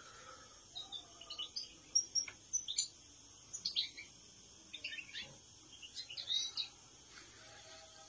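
European goldfinches chirping and twittering: short, high calls in small clusters about once a second.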